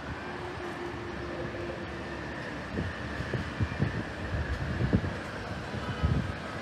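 A train running by: a steady rumble with a faint high whine, and irregular low thumps from about three seconds in.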